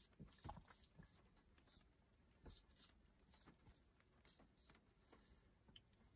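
Faint, irregular clicks and scrapes of a knife cutting slices into the end of a hand-held salami chub.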